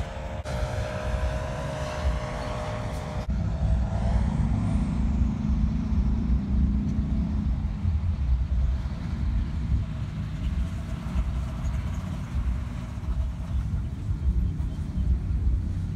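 A paramotor's engine and propeller droning under a heavy, uneven low rumble. The sound changes abruptly twice in the first few seconds.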